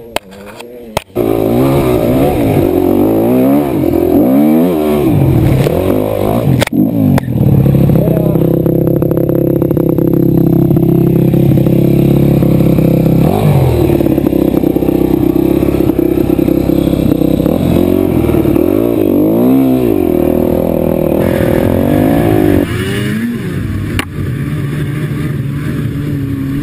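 Dirt bike engine revving up and down over and over, then held at high revs for several seconds before revving again. Near the end the sound changes to a snowmobile engine running.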